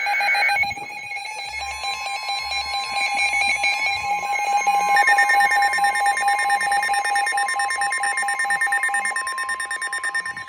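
Several NOAA weather radios sounding their alert alarms together: rapid beeping layered over the steady 1050 Hz warning alarm tone, which starts about a second and a half in and cuts off near the end. A second, higher beeping alarm joins about five seconds in.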